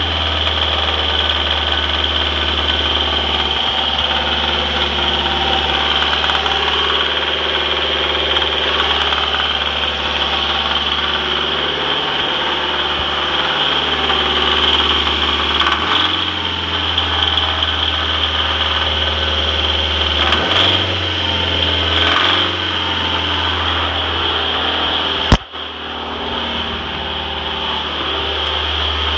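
Rebuilt Mazdaspeed Protege 2.0-litre turbocharged four-cylinder engine running in the engine bay, its speed shifting a few times, with one sharp click near the end. The owner hears a horrible rattling from the engine whenever the throttle is opened after the rebuild, and has checked the valve train and a possible rod knock.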